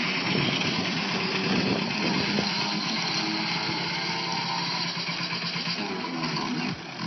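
Radio-controlled monster trucks running during a race, a steady motor and drivetrain noise that eases off a little near the end.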